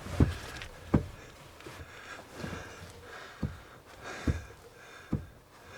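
Dull knocks, about one every second, from play in the cross of a Lada steering-shaft universal joint as the steering is rocked back and forth. The owner puts the play down to the joint not being centred after a steering-rack replacement.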